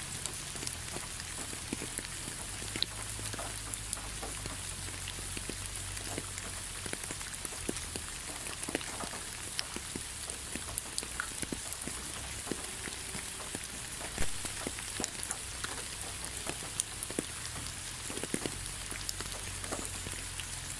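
Steady rainfall: an even hiss with many individual drops ticking sharply and irregularly, one drop louder about two-thirds of the way through.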